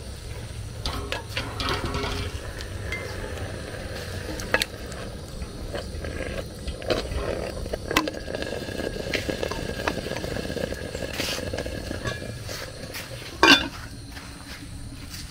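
Cooking utensil stirring and pressing thick rice fufu in a pot, with repeated knocks and scrapes against the pot and one loud clatter near the end.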